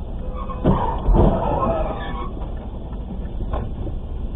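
Two cars colliding: two sharp impacts about a second in, the second louder, then a second or so of ringing and scraping. A steady engine rumble runs underneath, heard from inside the stopped car.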